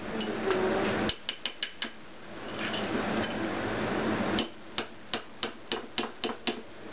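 Metal spoon clinking against a ceramic bowl while working a thick mayonnaise mixture: a quick run of about five taps a little after a second in, then about ten more, roughly four a second, from about halfway through.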